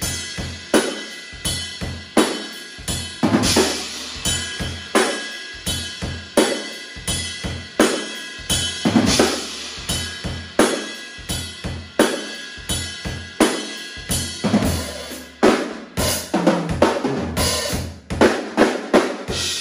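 Acoustic drum kit, Mapex drums with Sabian cymbals, played solo in a steady groove of bass drum, snare, hi-hat and cymbal strikes. Busier runs of quick strokes come about three seconds in, around nine seconds and again near sixteen seconds.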